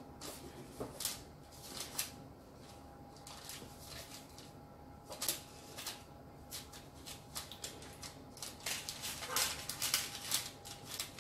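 Baking paper crinkling with light irregular taps and rustles as hands lift, weave and press strips of soft yeast dough into a lattice on a baking tray, over a faint steady hum.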